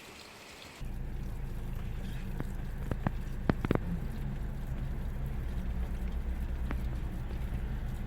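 Low, steady rumble of wind buffeting the microphone, starting abruptly about a second in, with a handful of sharp clicks or knocks near the middle.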